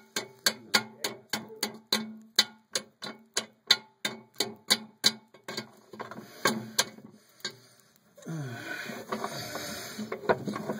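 Metal clicking at a cast-iron fireplace damper as its handle and cotter pin are worked by hand: sharp, even clicks about three a second, then a few uneven knocks, and a rough scraping from about eight seconds in.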